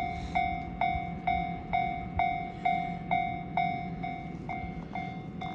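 Japanese railway level crossing alarm ringing, a bell-like tone struck a little over twice a second at an even pace, warning that a train is approaching.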